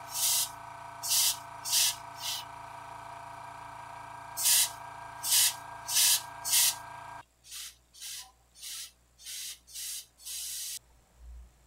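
Airbrush spraying skin-tone paint onto a resin miniature in short repeated bursts of hiss, about a dozen triggers, the last one held a little longer. A steady motor hum under them cuts off about seven seconds in.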